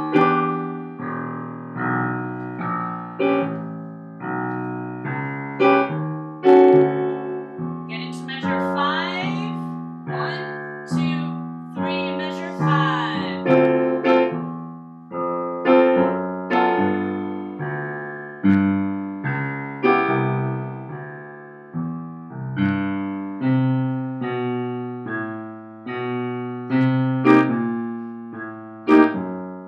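Digital piano played with both hands: a low bass line in the left hand under chords struck in the right, in a steady beat.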